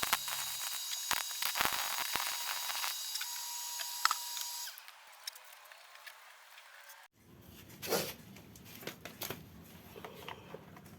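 Scattered light clicks and knocks of hand tools and metal parts being handled during assembly, over a steady hiss. It becomes quieter about five seconds in.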